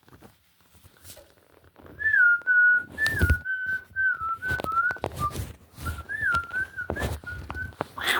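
Whistling, a wavering tone held close to one pitch, starting about two seconds in and running in short phrases. It is broken by sharp knocks and taps, which fit a cockatoo's beak chewing on the phone.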